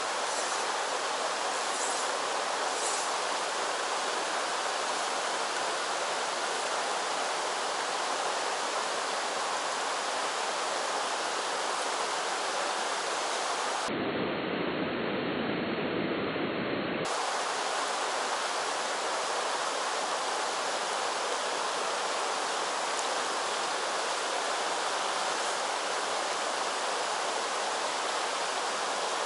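Mountain stream water rushing steadily over a rocky riffle. For about three seconds near the middle the rush turns duller and deeper.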